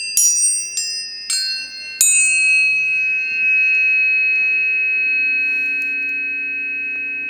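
Planetary tuning forks struck four times in quick succession, each strike a bright clang that settles into pure ringing tones. They are then left to ring as a steady, slowly fading chord of high tones, with a lower tone joining about five seconds in.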